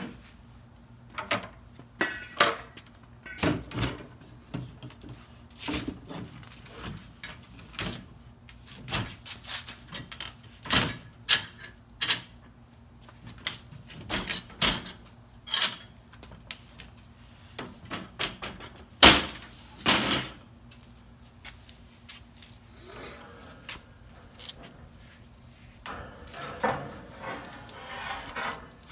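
Metal clanks, knocks and scrapes as the inside of a Weber SmokeFire pellet grill is cleaned out, irregular and sharp, with one loud knock about two-thirds of the way through, over a low steady hum.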